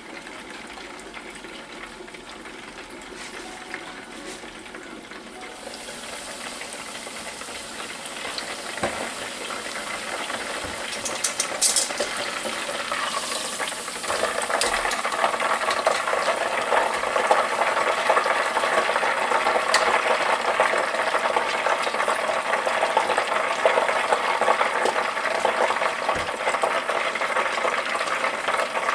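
Pork chop deep-frying in hot oil in a Presto deep fryer. The steady sizzle grows louder about halfway through as the basket is raised, with a few sharp metal clinks before that.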